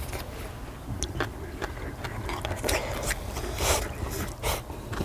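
Eating at a cast-iron pot-lid grill: chewing, with metal utensils scraping and clicking on the lid at irregular moments over a steady low hum.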